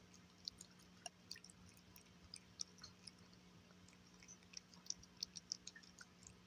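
Cat eating seared salmon from a bowl: faint, irregular wet smacks and clicks of chewing, coming thicker about five seconds in.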